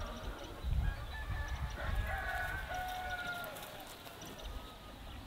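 A rooster crowing, one long drawn-out crow about two seconds in, over low rumbling thumps.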